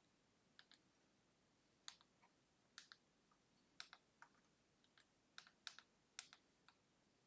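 Faint, irregular light clicks, some in quick pairs, about fifteen spread over several seconds.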